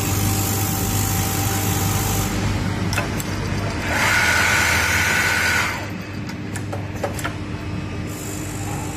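Richpeace automatic single-head template sewing machine running with a steady hum. A loud hiss lasts about two seconds in the middle, followed by several sharp clicks.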